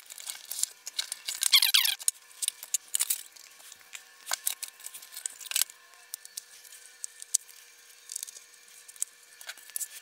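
Cardboard packaging box being opened and unpacked by hand: scattered rustles, scrapes and light taps of cardboard and contents, with a squeak falling in pitch about a second and a half in, as cardboard slides against cardboard.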